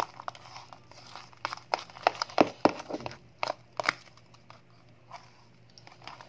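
Fluffy shaving-cream slime being stirred with a utensil in a plastic cup as detergent activator is mixed in: irregular sticky clicks and crackles, thickest in the middle and thinning out near the end.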